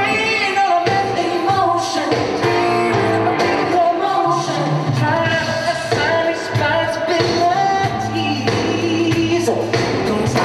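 Pop song sung by a male singer over full band backing, with a steady bass line under the vocal, in a live concert performance.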